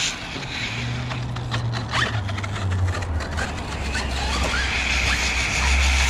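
Electric RC car driving on asphalt: motor whine and tyre noise with scattered ticks and rattles, over a low steady hum that drops in pitch twice.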